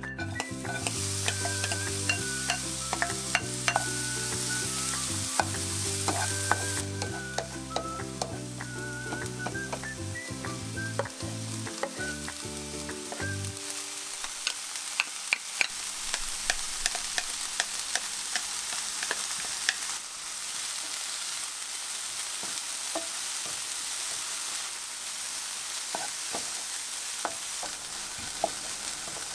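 Chopped carrot and onion, later joined by cabbage, green pepper and tuna, sizzling in olive oil in a frying pan. A wooden spatula stirs them, with scattered taps and scrapes against the pan.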